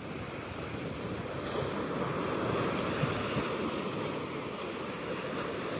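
Pacific Ocean surf washing steadily onto the shore, swelling a little louder about two seconds in.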